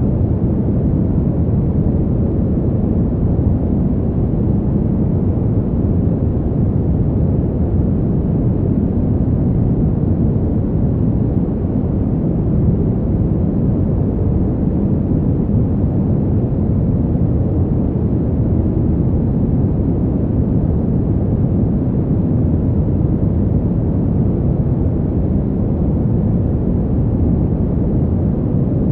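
Fan heater running steadily: an even, deep rush of air with little hiss and no change or rhythm.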